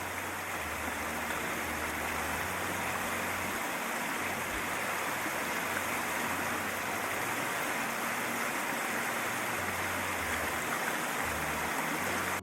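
Steady rush of river water flowing over rapids, cutting off suddenly at the end.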